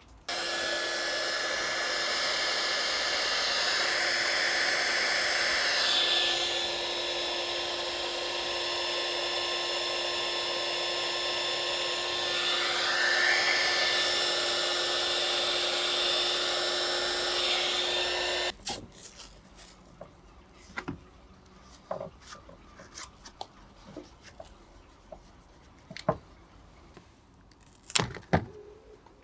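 Electric heat gun running, a steady blowing hiss with a motor whine, as it shrinks heat-shrink tubing over a soldered wire joint; it switches off abruptly about two-thirds of the way through. Light clicks and taps of handling the wiring follow.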